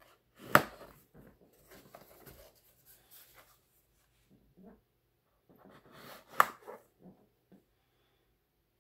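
A knife blade slitting packing tape on a cardboard mailer box, with scratchy cutting and rustling of the box in the hand. Two sharp knocks stand out, about half a second in and again about six and a half seconds in.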